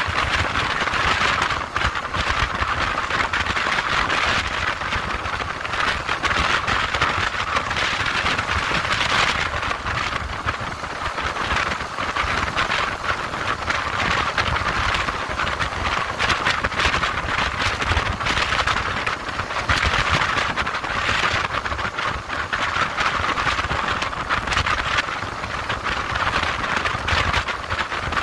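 Steady rushing wind and road noise of a motorcycle ridden at motorway speed, with a low rumble beneath.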